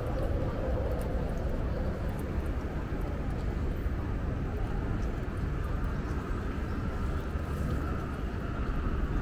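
City street ambience: a steady low rumble with no distinct events standing out.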